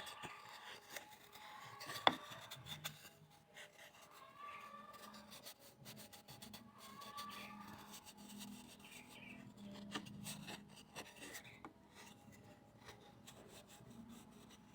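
Faint rubbing and scraping of wood or bamboo being worked by hand, with a sharp click about two seconds in and a few lighter knocks.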